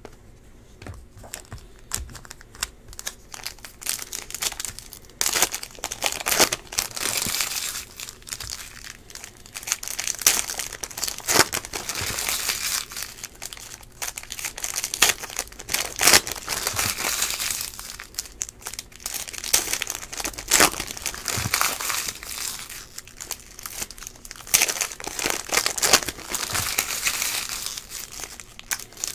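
Plastic Panini Prizm baseball card pack wrappers being crinkled and torn open by hand: a dense, uneven crackle of thin plastic that starts about a second in and goes on almost without a break.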